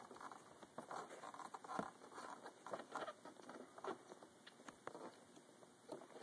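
Fingers working a plastic headlight wiring connector onto an H7 bulb: faint, irregular rustling and scattered small clicks.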